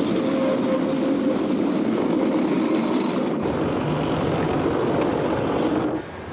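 Opicina tram running along its track: a steady rumble and rattle of wheels on rails with a faint whine. It changes abruptly about three seconds in to a deeper rumble, and drops to a much quieter hiss near the end.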